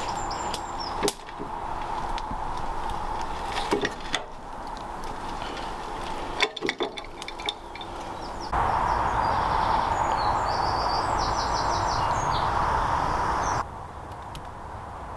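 Outdoor ambience in overgrown woodland: a steady rushing background with scattered sharp clicks and knocks in the first half, and birds chirping in the second half.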